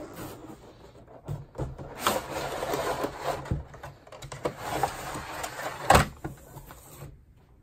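Hands handling a cardboard tool advent calendar and its black plastic tray: rubbing and scraping with scattered knocks, and one sharp knock, the loudest, about six seconds in.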